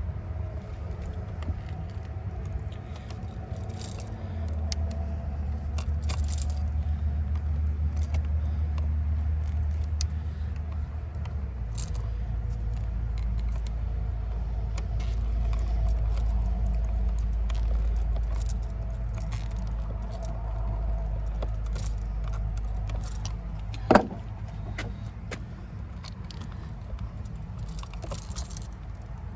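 Small clicks and metallic rattles of pliers working wire nuts and wires, with one sharp knock about 24 seconds in, over a steady low rumble.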